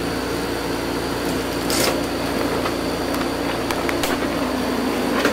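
Steady mechanical hum, with two brief knocks about two seconds in and again near four seconds.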